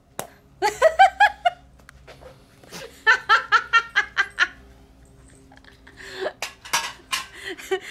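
A woman laughing in two bouts of quick, high-pitched bursts, with a few sharp clicks near the end.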